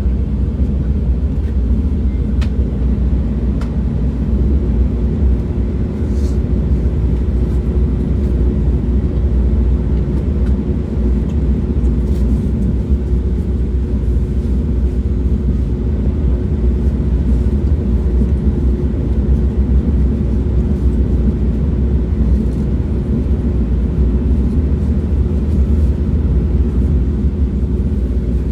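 Train in motion: a steady, even low rumble, with a faint steady hum coming in about five seconds in and a couple of light clicks just before it.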